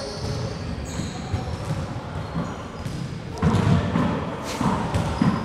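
Sneakers squeaking briefly on a hardwood handball court during a break between rallies, with faint voices in the background in the second half.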